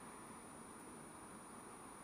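Near silence: a faint steady hiss with a thin high whine.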